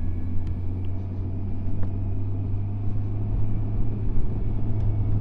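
Motorcycle engine running steadily at road speed, heard from the bike's on-board camera as a low even drone with wind and road noise over it.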